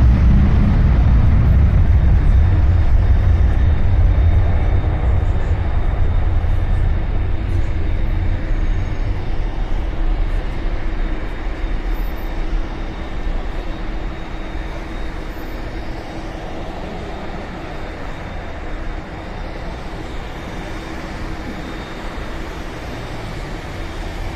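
Twin-engine jet airliner's engines at takeoff thrust: a loud, deep roar during the takeoff run that gradually fades as the jet lifts off and climbs away. Road traffic noise sits underneath.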